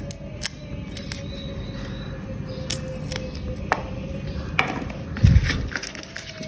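Scattered clicks and knocks of objects being handled, like kitchen or household work, with a heavier low thump about five seconds in, over a steady faint hum.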